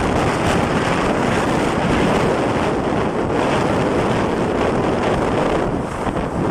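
Steady, loud wind noise on a phone's microphone carried on a moving motorcycle, with the ride's vehicle noise beneath it.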